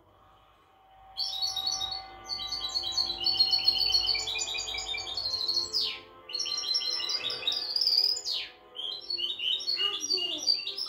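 Caged songbird singing a fast, varied song of chirps and trills. It starts about a second in and runs with brief pauses, with two quick downward-sweeping notes around the middle.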